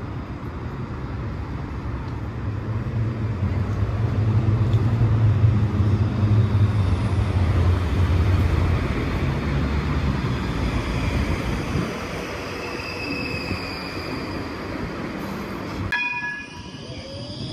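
Brussels TNG low-floor tram approaching on street tracks: a steady rumble of wheels on rail mixed with street noise, and a faint electric whine near the end. After a sudden cut near the end, another tram draws near with a few steady tones.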